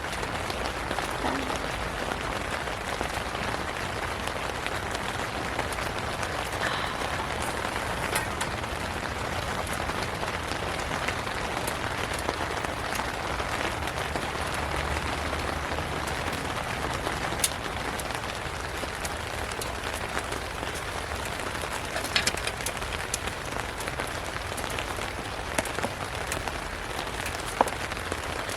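Steady rain falling, a continuous hiss with scattered sharper drop ticks.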